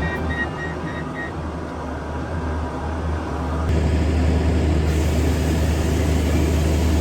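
A heavy vehicle's engine running steadily with a low hum, growing louder and noisier a little past halfway, as if under more load. A background tune ends about a second in.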